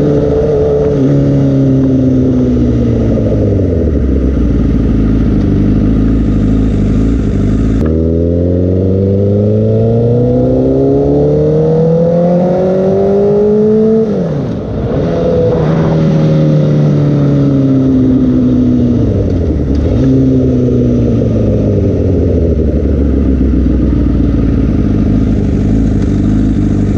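2016 Honda CBR1000RR's inline-four engine through an aftermarket Toce exhaust, heard from the saddle while riding. The engine note falls as the bike slows, then climbs steadily for several seconds under acceleration. It then rises and falls with throttle and gear changes, easing off near the end as the bike slows to a crawl.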